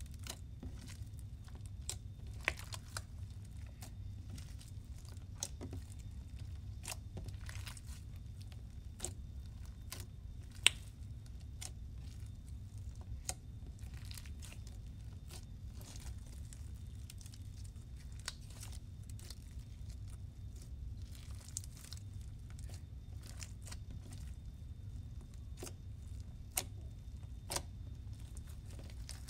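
Wet, bead-filled slime being kneaded and pulled apart by hand: irregular sticky crackles and snaps, with one louder pop about ten seconds in and a couple more near the end, over a steady low hum.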